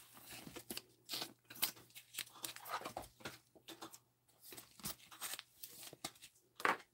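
Faint, irregular rustling and crinkling as gloved hands handle trading cards, plastic card holders and box packaging, with short scraping and tearing-like strokes.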